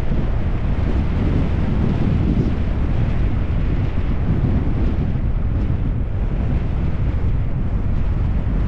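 Wind buffeting a GoPro action camera's microphone on a bicycle speeding downhill: a steady low rumbling rush that does not let up.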